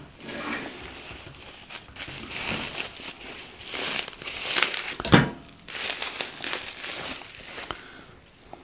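Plastic bubble wrap crinkling and rustling as it is pulled off a stainless steel electric pepper grinder, with one sharp crack about five seconds in.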